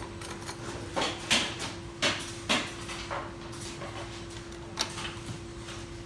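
Small parts knocking and clattering as they are picked from plastic bins and set on an assembly fixture: a handful of short, sharp knocks in the first half and one more near the end. A steady hum runs underneath.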